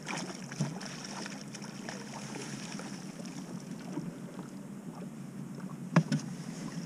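Wind and water lapping around an aluminium fishing boat, with a few short knocks as a walleye is netted and swung aboard. The sharpest knock comes about six seconds in.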